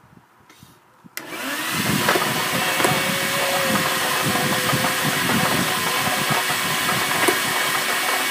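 An electric blower motor switches on about a second in, its whine rising as it spins up, then runs steadily, blowing plastic balls around inside a plastic water jug, with a few sharp clicks as balls strike the jug.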